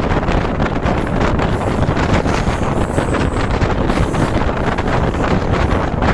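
Strong wind buffeting the microphone of a phone held out of a moving passenger train, over the train's steady running rumble.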